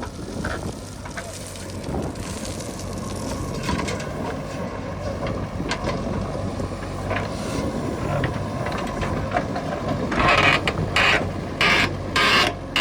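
Heavy machine's engine running steadily, with a series of loud mechanical clatters and knocks near the end.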